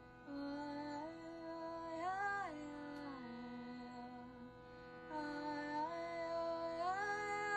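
Wordless singing in long held notes that slide up and down between pitches, with a pause in the middle, over a steady sustained drone tone.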